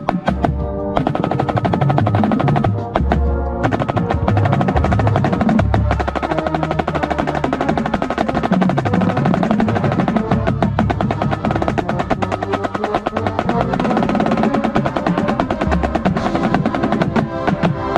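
Marching snare drum played at close range, with rapid strokes and rolls. Lower drums and pitched instruments of the drum corps sound underneath.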